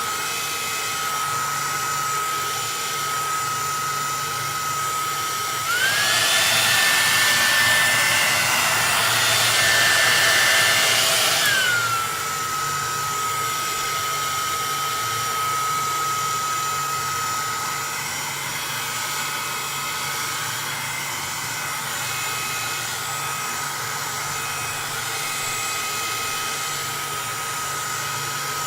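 Electric heat gun running: a steady blower whine over a rush of air. About six seconds in its pitch rises and it gets louder for about six seconds, then glides back down to the first pitch.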